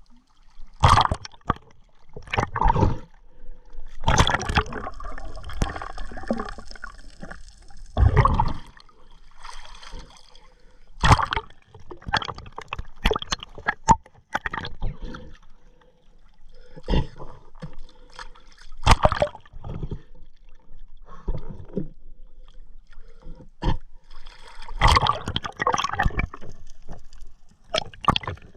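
Water sloshing and gurgling in irregular bursts as a night spearfisher swims, the camera moving at and under the surface.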